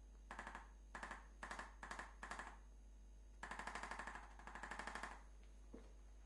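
Handheld chiropractic percussion adjusting instrument pressed against a patient's back, firing rapid rattling pulses in five short bursts, then two longer bursts of under a second each.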